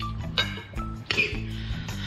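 Background music with a repeating bass pattern. Short noisy sounds come over it about half a second in and again after about a second.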